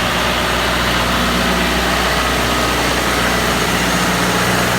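5115 loader tractor's diesel engine running steadily.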